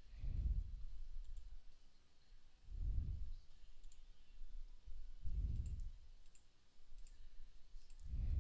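Faint, scattered computer mouse and keyboard clicks, with soft low puffs of breath on the microphone about every two and a half seconds.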